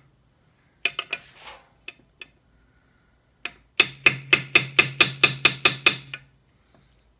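Small hammer tapping a new input shaft seal into a Honda B-series transmission case. There are a few light taps about a second in, then a quick even run of about a dozen taps, about five a second, working round the seal to seat it flush in its bore.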